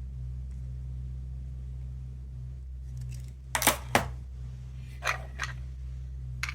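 A few sharp plastic clicks and snaps, two loud ones about three and a half and four seconds in and a few fainter ones after, from a small plastic capsule toy being handled. A steady low hum runs underneath.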